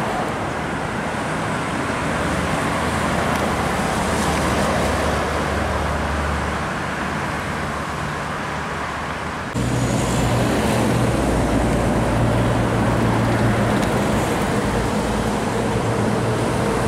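Expressway traffic noise with heavy diesel trucks passing close by: first a Scania tanker truck, then, after an abrupt cut a little over halfway through, a HOWO dump truck, its engine a steady hum over the tyre and road noise.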